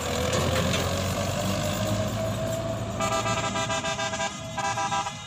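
Tractor engine running as it pulls a trailer past, with a slowly rising engine note; about three seconds in, a vehicle horn sounds in several blasts.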